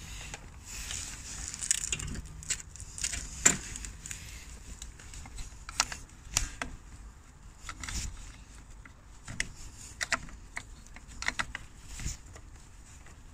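Cloth rustling close to the microphone with irregular small clicks and taps, from hands working an electrical connector onto an auxiliary heater water pump in an engine bay.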